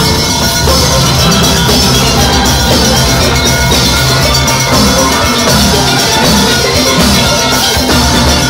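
Steel orchestra playing live: many steel pans sounding together in full ensemble, loud and continuous, over a steady beat.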